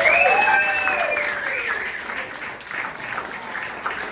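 Audience applauding after a speech: many hands clapping, loudest at the start and easing off. A few voices call out over the clapping in the first two seconds.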